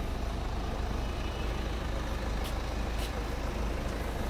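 Hyundai Santa Fe turbo-diesel engine idling steadily, a constant low rumble.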